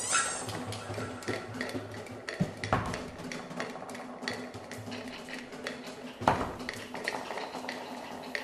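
Experimental sound-art composition: scattered clicks, knocks and metallic clinks over a low steady hum, opening with a quick falling whistle. Two heavier thuds stand out, about three seconds in and again about six seconds in.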